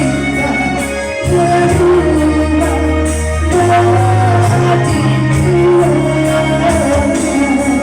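Live band playing a pop song with a steady drum beat, sustained bass notes and a sung melody of long, wavering held notes.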